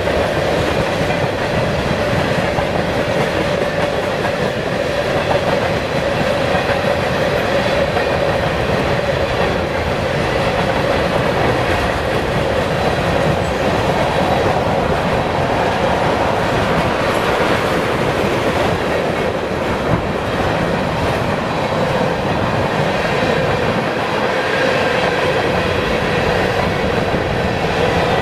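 Freight train rolling past, its cars and wheels making a steady, continuous rumble on the rails.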